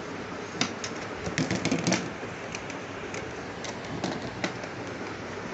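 Scattered light clicks and taps of plastic toy dishes and pieces handled on a plastic table, busiest between about one and two seconds in.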